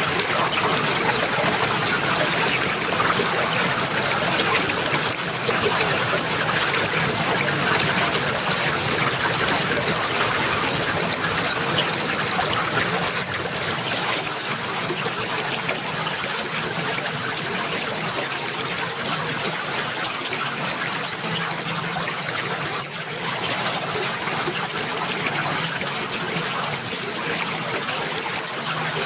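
Water flowing and trickling in a steady, unbroken wash, a little quieter from about halfway through.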